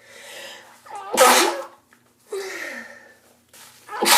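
A person in an allergic sneezing fit: a sharp in-breath, one loud sneeze about a second in, a short voiced breath out with falling pitch, then another in-breath as the next sneeze starts at the end.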